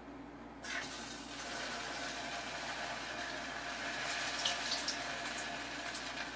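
Battered mini hot dog lowered into a shallow pot of hot canola oil: the oil breaks into a sizzle about half a second in and keeps up a steady hiss with fine crackling.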